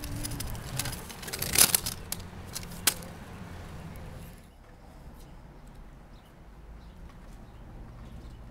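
Kick scooter rolling over rough asphalt, with a few sharp clacks of the deck and wheels, the loudest about a second and a half in and again near three seconds. After about four and a half seconds it gives way to a quieter steady background noise with a faint low hum.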